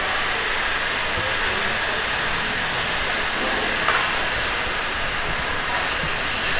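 Standing steam locomotive hissing steadily as steam escapes while it waits at rest.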